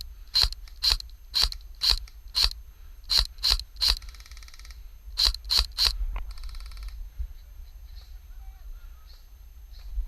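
Airsoft electric rifle fired in single shots, about two a second, a dozen sharp cracks over six seconds, with two short faster rattles in between.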